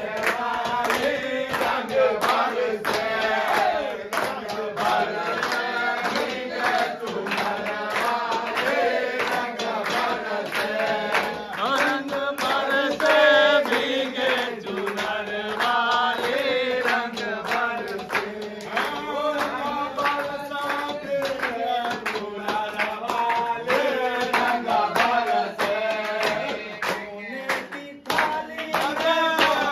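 A group of men singing a Holi folk song together. A steel plate is struck like a cymbal to keep a steady beat, with hand-clapping alongside.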